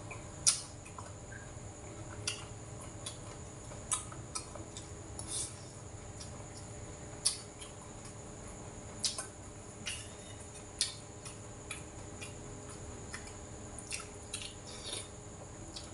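Eating sounds: scattered short clicks and smacks from chewing and from chopsticks and a spoon tapping bowls, about twenty over the stretch, against the steady hum of an electric fan.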